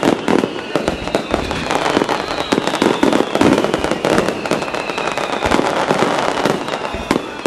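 Aerial fireworks shells bursting in a rapid barrage of bangs and crackles, with high whistling tones sliding slowly down in pitch.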